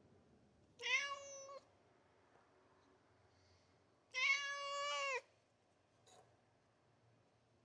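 Domestic cat meowing twice: a short meow about a second in, then a longer, louder meow about four seconds in.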